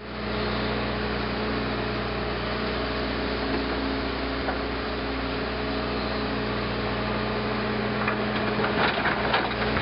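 SANY SY215 hydraulic excavator's diesel engine running at a steady pitch while it digs, with a few knocks and rattles near the end as the bucket works the rocky ground.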